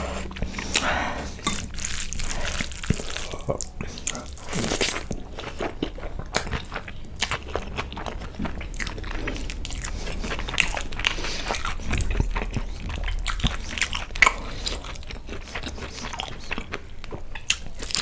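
Close-up eating sounds: chewing and wet mouth smacks over handfuls of saucy egg fried rice and chicken Manchurian, as irregular clicks and squelches, with sticky squishing as a bare hand gathers the rice.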